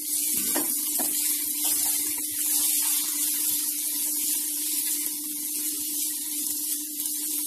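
Chopped green beans and onions sizzling with a steady hiss in a hot pan as they are stirred with a silicone spatula, a few light scrapes near the start, over a low steady hum.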